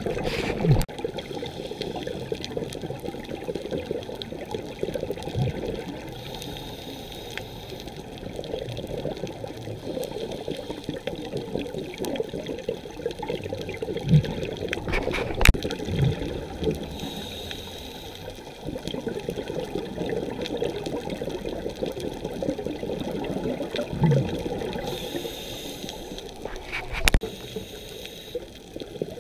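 Underwater sound of a scuba dive heard through a camera housing: steady bubbling and rushing from divers' regulator breathing, with a brief hiss about every nine or ten seconds and a few sharp knocks.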